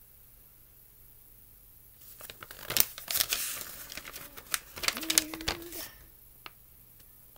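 A paper instruction sheet being unfolded and handled: crinkling and rustling with sharp crackles, starting about two seconds in and lasting about four seconds.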